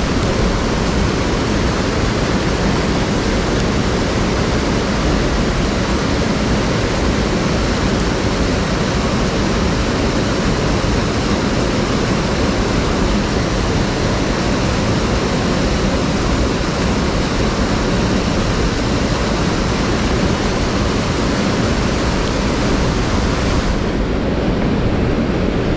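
Rushing water of a mountain stream, a loud, steady wash of flowing water with no pauses; its treble changes slightly near the end.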